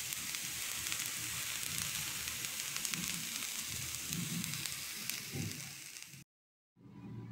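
Fried rice sizzling in a wok, a steady frying hiss with scattered small crackles. It cuts off suddenly about six seconds in.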